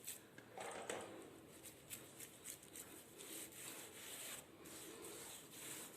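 Faint rubbing of hands smoothing and shaping barley-flour dough, with a few light taps.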